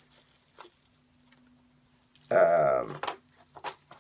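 A man's drawn-out hesitation sound ("uhh") about two seconds in, falling in pitch, followed by a few sharp clicks of handling, over a faint steady hum.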